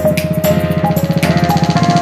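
Background music: a fast, driving drum beat with a held melody line over it.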